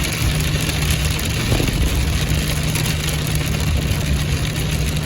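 Car engine idling steadily, with a constant low hum under an even hiss.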